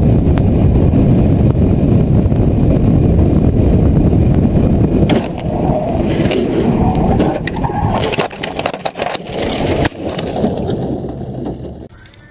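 Loud rumbling of a vehicle on the move, then scattered knocks and clatter from about five seconds in, busiest a few seconds later, dying away near the end.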